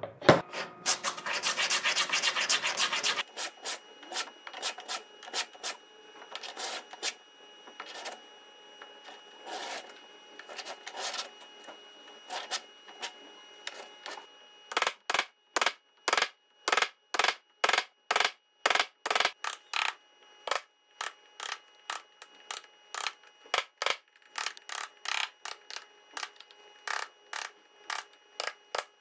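A chisel being struck to chop out the waste of half-blind dovetail sockets in hardwood: sharp separate knocks, scattered at first, then a steady run of about two blows a second from about halfway on. Near the start there is a loud rasping scrape lasting a couple of seconds.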